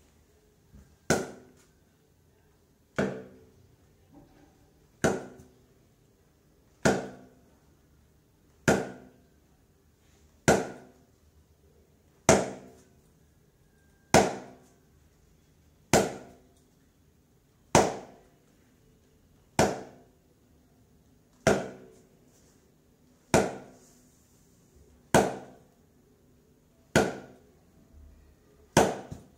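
Cricket bat striking a ball hung on a rope with straight-bat shots: a sharp knock about every two seconds, sixteen in all, each with a short ringing tail.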